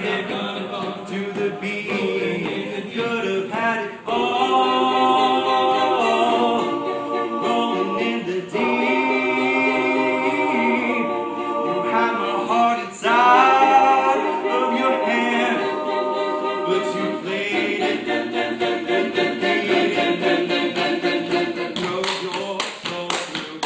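All-male a cappella group singing, a solo tenor voice holding high notes over sustained backing chords from the group. Sharp hand claps in a steady rhythm start near the end.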